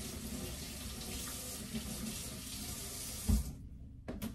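Kitchen faucet running into the sink as green onions are rinsed under it, with a dull thump about three seconds in; the water shuts off just after.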